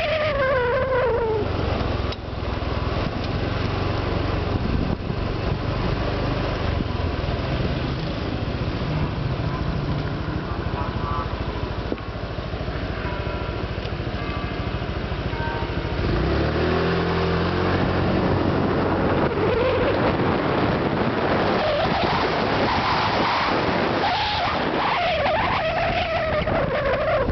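Honda Vario 125 scooter's liquid-cooled fuel-injected single-cylinder engine running while ridden, with wind and road noise; about 16 seconds in the engine note climbs as it speeds up, and gliding whines rise and fall at the start and near the end. This is the owner's sound check for the 'snore', which he believes is gone after a new coil, spark plug and a larger stainless-steel muffler neck.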